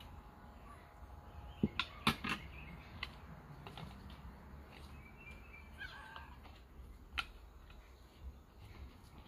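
A few sharp clicks and knocks, the loudest cluster about two seconds in, as a fork and plates are handled while fried dumplings are served out. Birds call briefly in the background about midway.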